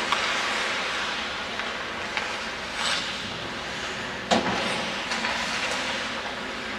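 Ice hockey in play: a steady hiss of skates cutting the ice over rink noise, with a sharp crack about four seconds in and a few smaller knocks.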